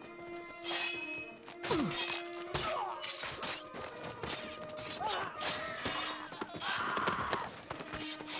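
Film battle sound effects: a quick run of crashes, thuds and shattering, with a steady music score underneath.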